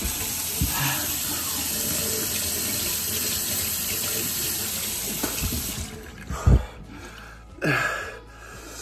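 Sink faucet running at full flow, water pouring into a mouth drinking from the stream, shuts off about six seconds in. A sharp thump follows, then a short burst of breathy noise.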